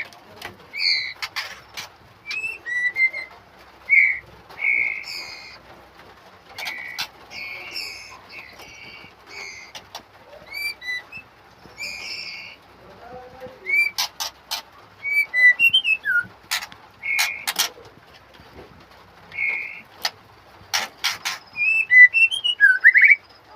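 Murai songbirds calling in a cage while a parent feeds its fledglings: many short chirps and whistled notes, with several sharp clicks between them.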